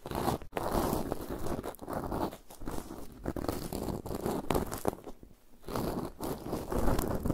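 Cotton swab rubbing and scratching directly on the grille of a Zoom H6 recorder's X/Y microphone capsule: a close, crackly rustle full of fine clicks, with a brief pause about five seconds in.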